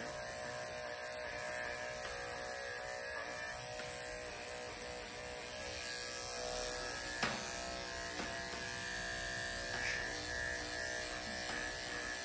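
Corded electric dog-grooming clipper fitted with a #7 skip-tooth blade, running with a steady buzz as it is drawn through a Goldendoodle's coat on the back leg.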